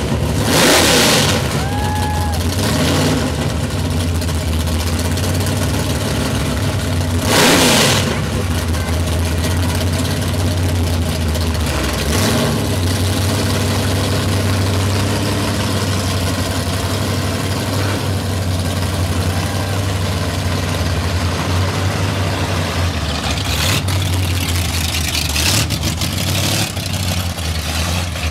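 V8 engines of 1960s super stock drag-racing Dodges running at low speed as the cars pull slowly away, a steady low engine note, with one short loud burst about seven seconds in.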